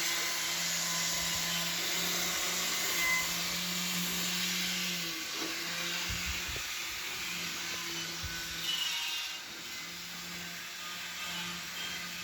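Power tool running with a steady whirring, rushing noise, with a few low knocks along the way.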